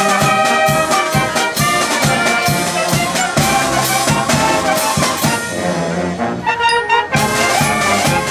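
Live concert band playing: saxophones, brass and drums together with a steady beat. About five and a half seconds in the band drops to a lighter passage without the drum, and the full band comes back in about a second and a half later.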